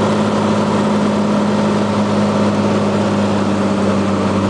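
Cessna 182T's six-cylinder Lycoming piston engine and propeller, heard from inside the cabin as a loud, steady drone at constant power in flight.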